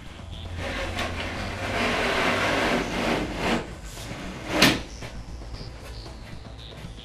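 Wooden cabinet base panel sliding down between the cabinet sides with a long scraping rub, then landing in place with one sharp knock about four and a half seconds in.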